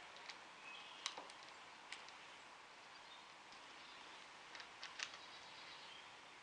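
Faint metallic clicks and ticks of wire ring terminals and washers being pinched down onto a battery's positive post, a handful of them with the sharpest about a second in and a small cluster around five seconds in.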